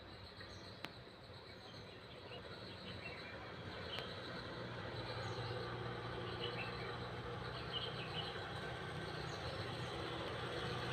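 Outdoor field ambience: scattered short bird chirps and insect noise over a low steady hum that slowly grows louder.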